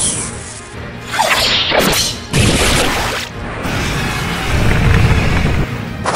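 Animated sword-fight sound effects: several fast swishing whooshes, a heavy crashing hit about two and a half seconds in, then a long noisy rumble.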